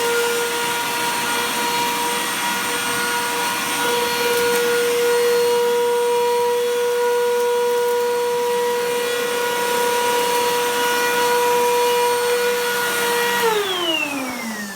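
Vax Power 1 upright vacuum cleaner running at full speed, a steady high-pitched motor whine. It is switched off near the end, and the whine falls in pitch as the motor winds down.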